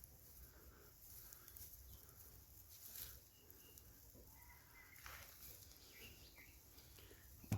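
Near silence, with a few faint, short bird chirps in the middle and a couple of soft clicks.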